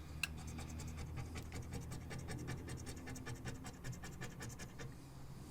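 Scratch-off lottery ticket being scratched: quick, repeated scraping strokes rubbing the coating off the ticket's play spots.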